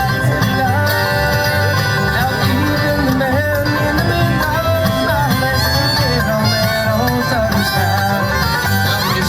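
Background music: an upbeat country/bluegrass-style song with plucked strings over a steady bass line.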